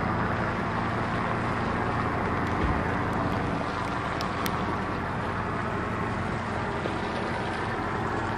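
Whale-watching boat's engine running with a steady low hum under wind and water noise, with a brief low thump about two and a half seconds in.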